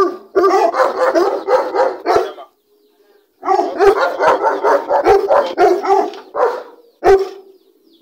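Dogs barking in quick runs: a long volley of rapid barks, a brief pause, a second long volley, then a single bark near the end.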